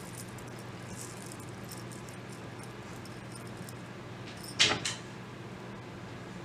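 Brass-tone metal link bracelet clinking as it is picked up: one sharp jingle about four and a half seconds in and a smaller one just after, over a faint steady hum.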